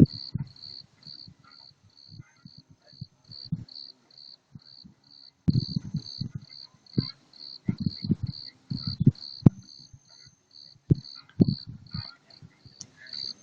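A cricket chirping in an even rhythm, about three chirps a second, while gusts of wind buffet the microphone in irregular low thumps that are the loudest sound.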